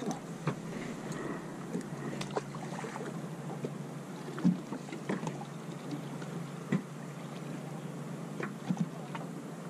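Water lapping against the hull of a small fishing boat, with scattered light knocks and clicks, a few sharper ones about halfway through, over a steady low hum.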